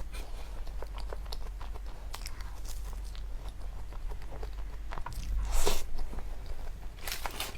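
A person biting and chewing crunchy food close to the microphone: irregular crisp crunches, with a louder crunch about three quarters of the way in.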